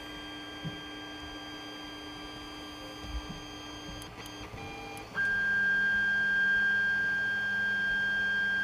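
Stock Creality Ender 3's stepper motors homing under its original 8-bit board. After a few faint clicks and a short beep, a loud steady high-pitched stepper whine starts about five seconds in and holds. The noise comes from the board's loud stepper drivers.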